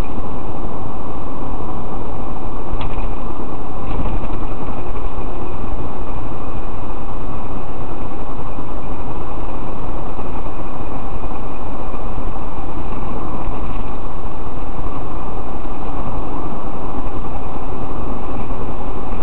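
Steady, loud road and engine noise inside a moving taxi's cabin, with a few faint clicks about three and four seconds in.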